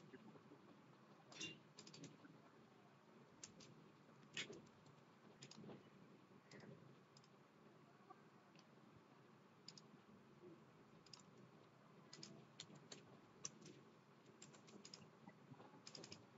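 Faint, scattered clicks of a computer keyboard and mouse at irregular intervals over low room hiss.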